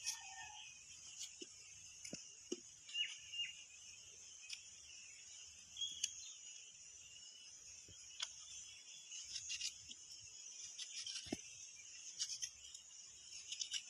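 Steady high-pitched insect chorus, with scattered short clicks and knocks over it.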